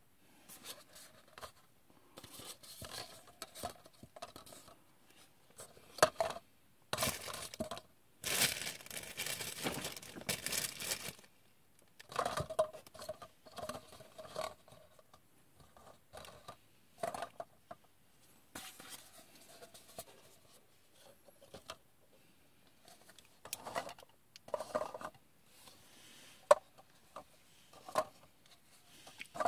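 Paper cups being handled: picked up, pulled apart and set down, with light taps, paper rubbing and scraping, and a few seconds of louder rustling or crinkling about a third of the way in.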